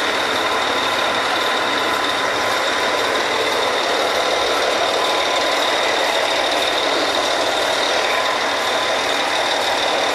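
Drilling rig machinery running steadily: a loud, even mechanical noise with constant high whining tones.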